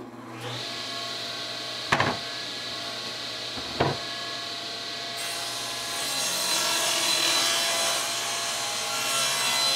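Table saw running steadily, then from about six seconds in its blade cutting through plywood as the panel is pushed through, a little louder. Two sharp knocks in the first four seconds come from the plywood panel being set down on the saw table.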